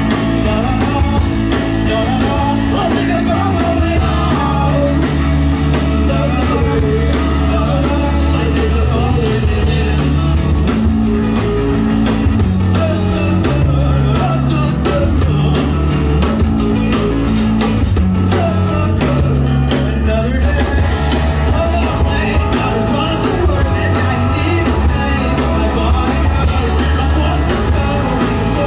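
Live rock band playing a song, with singing over guitar, bass and drums.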